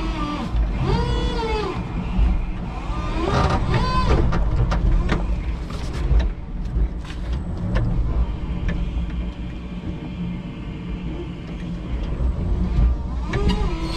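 Electric forklift at work: a steady low rumble from driving and lifting, a few sharp clunks about four to six seconds in, and a thin steady whine from about eight to twelve seconds in.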